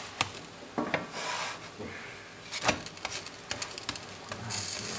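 Wooden spatula pressing and scraping over crisp, pan-fried flatbread pockets in an electric frying pan, giving dry rasping rubs and a few sharp taps. A steady hiss comes up near the end.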